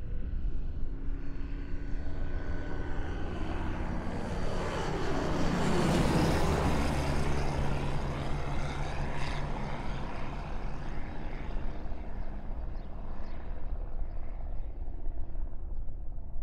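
Propeller-driven light single-engine aircraft flying low past: the engine drone grows louder, passes about six seconds in with a drop in pitch, then fades away.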